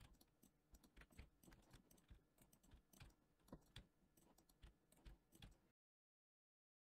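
Near silence with faint, scattered clicks of a computer keyboard and mouse, a dozen or so irregular taps; the sound cuts out to dead silence near the end.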